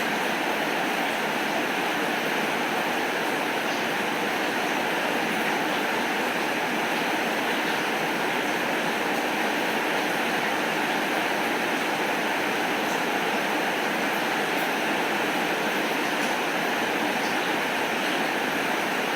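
Heavy rain falling steadily, an even hiss with a few faint ticks and no thunder.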